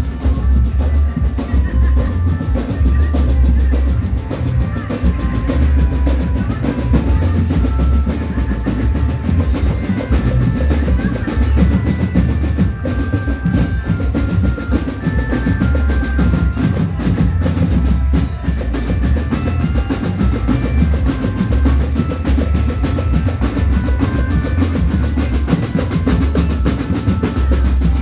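Marching drum band playing: bass drums and snare drums beating steadily, with a high melody of short held notes above them.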